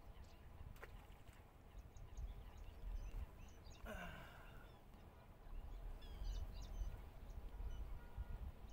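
Open-air lakeside ambience: a steady low rumble of wind on the microphone, with scattered short bird chirps and one louder gliding call about four seconds in.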